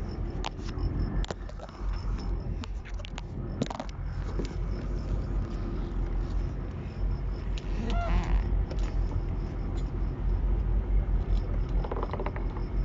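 Steady low rumble of a fishing boat's engine, with a few sharp knocks of gear being handled on deck in the first few seconds.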